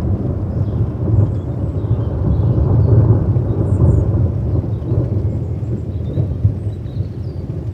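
A long, low roll of thunder rumbling, loudest about three seconds in and then slowly fading. Rain falls steadily on the terrace underneath it.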